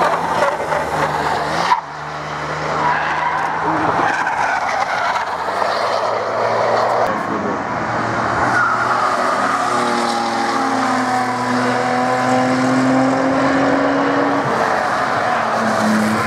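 Cars driven hard on a race circuit. First a BMW E34 saloon's engine and squealing tyres as it slides through a corner, cut off abruptly about two seconds in. Then a classic Porsche 911 and another car come through a bend, with an engine note held at a steady pitch for several seconds.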